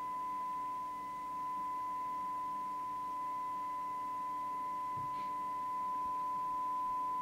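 Steady single-pitch test tone from a Midland 2001 CB radio's loudspeaker: the demodulated signal-generator tone, heard while the receiver's detector coil is tuned for maximum amplitude. The tone dips slightly about a second in and grows a little louder near the end, with a faint tap about five seconds in.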